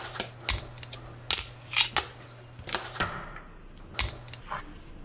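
Fingerboard skating on a granite curb: a string of sharp clacks as the little board's tail pops and its wheels land on the stone and table, with a short scrape of the trucks grinding along the granite edge just after three seconds.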